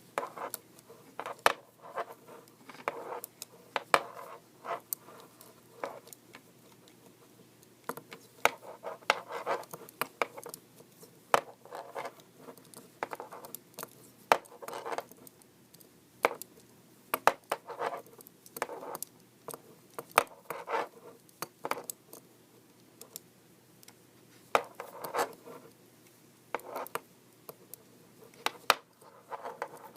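Size 8 knitting needles clicking and scraping against each other as stitches are worked, here a purl round, with sharp irregular clicks and soft rubbing of yarn.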